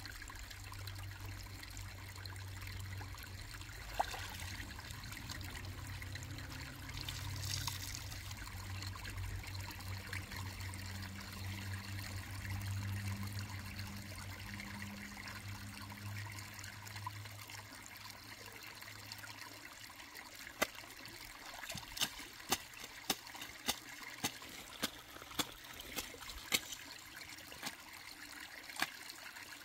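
Water trickling, with a low steady hum that fades out about two-thirds of the way through. Then comes a run of sharp knocks, about two a second.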